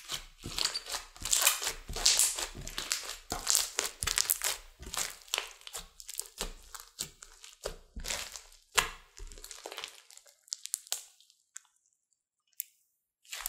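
Hands squeezing and kneading thick slime studded with small beads, giving a run of irregular wet crackles, pops and squelches. The sounds thin out after about ten seconds and stop for a moment near the end.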